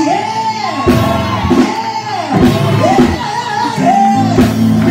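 A preacher whooping, the chanted close of a Baptist sermon: sung phrases that rise and fall, one after another, over steady held low notes of instrumental accompaniment.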